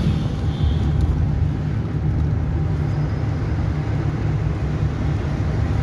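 Steady engine hum and road noise heard from inside the cabin of a moving Suzuki car.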